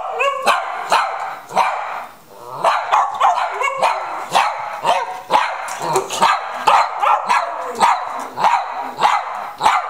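Cavalier King Charles Spaniel barking over and over at about two to three barks a second, with a brief pause about two seconds in. It is demand barking for treats.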